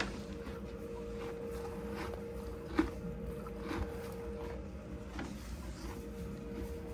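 A horse eating hay from the stall floor: irregular crunching and rustling of hay as it chews, over a steady hum.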